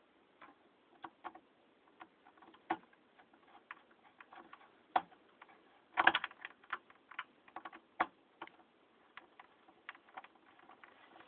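Irregular small clicks and taps of a screwdriver working the mounting screws of a replacement power supply inside a KVM extender's metal case, with a louder cluster of clicks about six seconds in.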